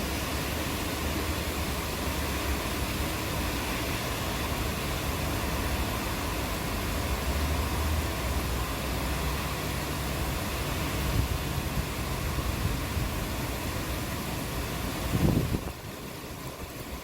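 Steady rain hiss with a low rumble of distant thunder swelling through the middle. The level drops suddenly near the end.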